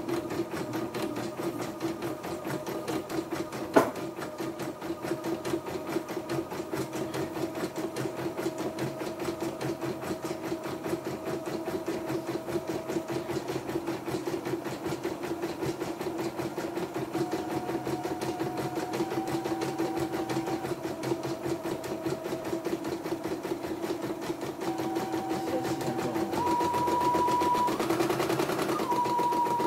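YOKO portable computerized embroidery machine stitching, its needle running in a rapid, even rhythm with a whine that steps up and down in pitch as the hoop moves. A single sharp click about four seconds in; the running gets a little louder in the last few seconds.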